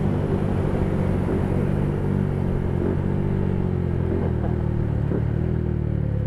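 Motorcycle engine running steadily under way, mixed with road and wind noise; its note eases down slightly about four seconds in.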